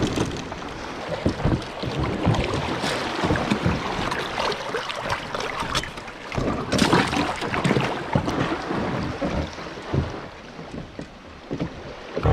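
Water slapping and lapping against a small boat's hull, with wind on the microphone and irregular knocks and rattles from handling gear aboard.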